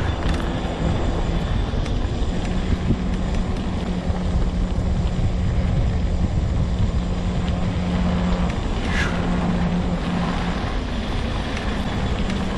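Homemade all-wheel-drive mobility scooter rolling along at speed, its electric drive motor giving a steady whine over a dense low rumble of tyres and wind.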